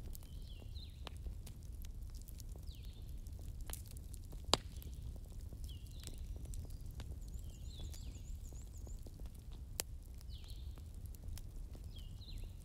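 A wood bonfire crackling with scattered sharp pops over a low steady rumble, while birds call again and again with short falling chirps; a quick high trill comes about seven seconds in.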